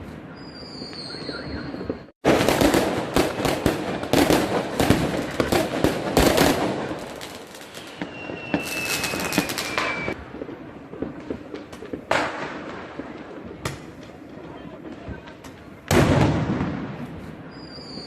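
New Year's fireworks and firecrackers going off across the city: a dense volley of bangs and crackling for a few seconds, then a whistle with a slowly falling tone, then scattered single bangs with echoing tails.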